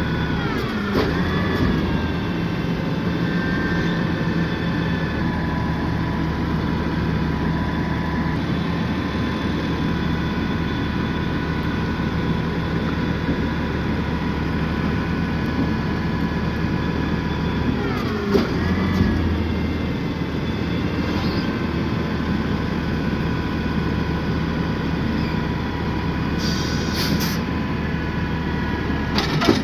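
Peterbilt 520 side-loader garbage truck with a Heil Rapid Rail arm, running steadily with a high whine over the engine drone. The pitch dips and rises about a second in and again about 18 s in. There is a short hiss near the end.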